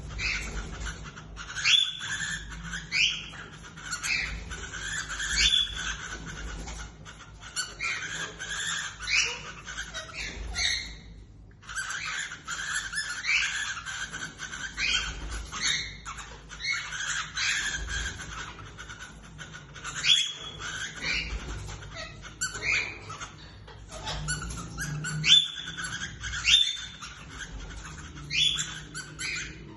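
Cockatiels calling: many short, rising chirping whistles in quick succession, breaking off for about a second near the middle.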